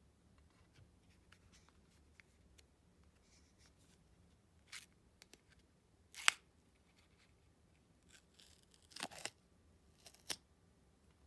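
Sealed lid of a Calippo Orange ice lolly tube being peeled off the cardboard tube: quiet rustling and crinkling, with a few sharper tearing crackles, the sharpest about six seconds in and a short cluster about nine seconds in.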